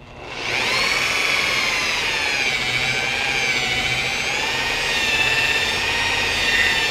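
Electric rotary polisher with a wool buffing pad spinning up about half a second in, then running steadily while buffing compound on fresh clear-coat paint. Its high motor whine wavers slightly in pitch.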